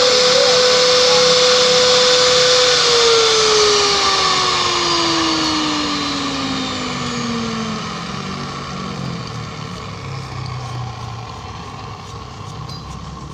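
Electric pipe threading machine motor running with a steady whine, then winding down about three seconds in: the whine falls steadily in pitch and the machine noise fades.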